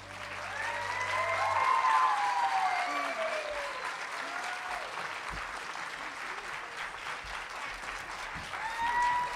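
Church congregation applauding, the clapping rising in at the start, with cheering voices gliding over it early on and again near the end.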